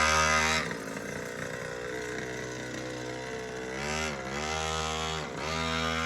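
Pocket bike's small two-stroke engine running, its pitch dipping and coming back up twice near the end as the throttle is eased and reopened.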